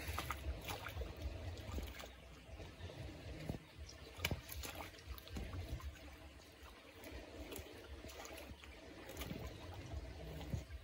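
Shallow water sloshing and splashing as a Komodo dragon shakes and bites an eel at the water's edge, with scattered sharp splashes, the loudest about four seconds in, over a low steady rumble.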